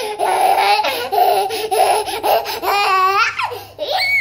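A toddler laughing hard in quick, breathy bursts, breaking into high-pitched squeals near the end.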